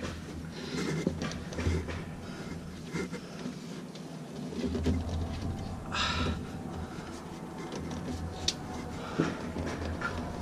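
Handling noise from a deflated rubber air-spring bag being folded and pushed up through a steel coil spring: rustling and scraping of the bag against the coil, with a louder scrape about six seconds in and a few short clicks near the end.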